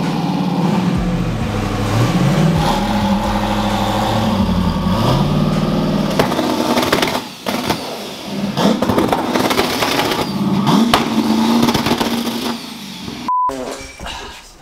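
Turbocharged 5.3 L LS V8 in a Corvette running while being pulled up onto the dyno, its revs dropping and rising again several times. A short beep sounds near the end.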